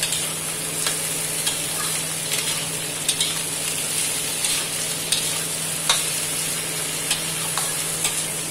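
Steel spatula stirring cubed eggplant and potato frying in oil in a metal kadhai: a steady sizzle with irregular clicks and scrapes of the spatula against the pan.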